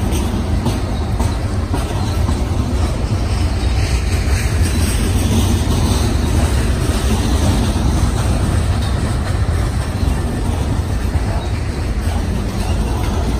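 Freight train of open hopper cars rolling past, a steady low rumble of steel wheels on the rails.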